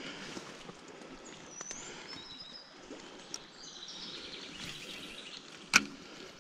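Outdoor streamside ambience with birds chirping and whistling several times, and one sharp click near the end.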